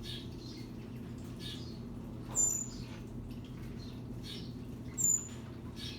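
A parrot giving two short, very high-pitched squeaks, about two and a half seconds apart, over a steady low hum.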